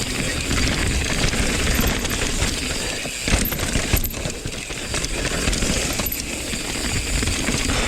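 Mountain bike rolling over a dirt and rock trail: steady tyre and trail rumble with the bike rattling, and a few sharp clicks about three and four seconds in.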